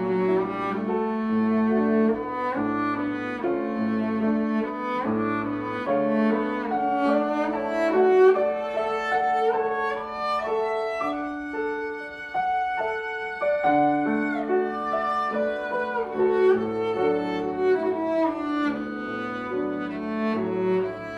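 Cello and grand piano playing a classical duo: a bowed cello line over piano accompaniment. A little past halfway the low notes drop out for a few seconds, leaving a thinner, higher passage, before the full texture returns.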